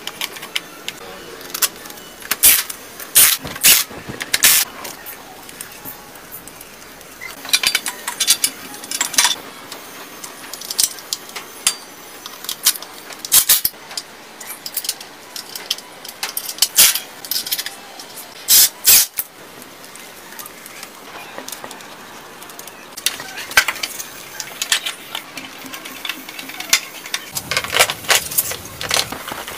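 Metal tools and motorcycle parts clinking and clanking by hand during reassembly: irregular sharp clicks and taps in clusters, with short quiet gaps between them.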